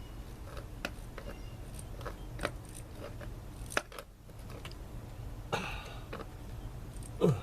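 Tools and parts being handled during plumbing work: scattered light clicks and taps over a steady low hum, with a sharper click about four seconds in and a brief rustle near the end.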